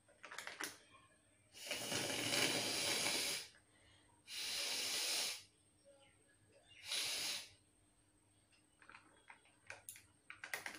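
A person blowing hard out through the nose three times, each blow a loud hiss of air: the first about two seconds long, the next two shorter. Faint ticks and rustles sit around them near the start and end.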